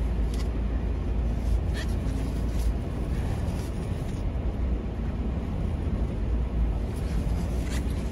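Semi truck's diesel engine running at low speed as the truck creeps along, a steady low rumble heard from inside the cab. A couple of brief faint high chirps sound, one about two seconds in and one near the end.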